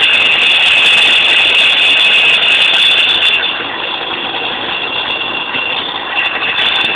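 Car engine running with a rattling noise. The sharper, higher rattle drops out for a few seconds in the middle and then comes back.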